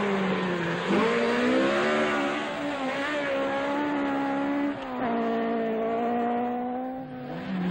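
Mk2 Ford Escort rally car's four-cylinder engine at high revs, driven hard, its pitch stepping up about a second in, dropping just before five seconds and dipping again near the end.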